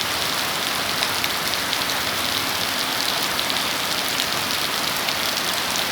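Steady rain falling, an even hiss with scattered ticks of individual drops striking a surface.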